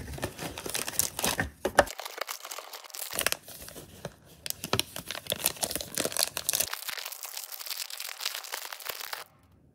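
Foil wrapper of a 2022 Panini Donruss Racing jumbo trading-card pack crinkling as it is pulled from the box and handled, then being torn open. The crackling stops suddenly near the end.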